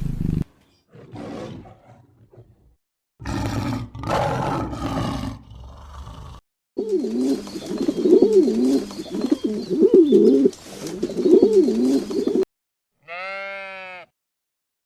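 A series of different animal calls cut one after another, with short silent gaps between them: rough, roar-like calls, then a call that wavers up and down over and over for several seconds, then one short call that rises and falls in pitch.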